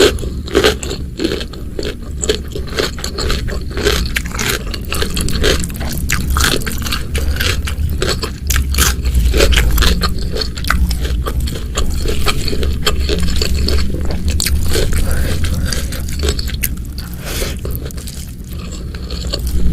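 Close-miked eating sounds: a person chewing and biting food, with many short, sharp clicks throughout over a steady low hum.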